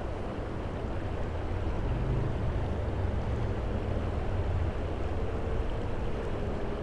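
Steady low rumble of outdoor background noise, with a faint steady hum joining about three seconds in.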